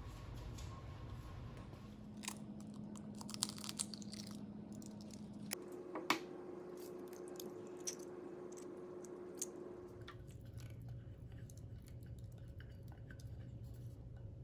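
Eggs cracked on a glass bowl and their shells pulled apart by hand: a series of faint crunchy cracks and clicks, the sharpest a little before the halfway point.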